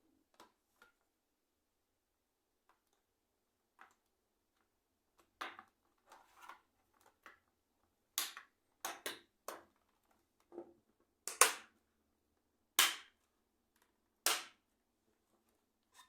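Irregular sharp plastic clicks and snaps from an ICL membrane keyboard being reassembled, a few faint ones at first and then louder snaps every second or so from about eight seconds in.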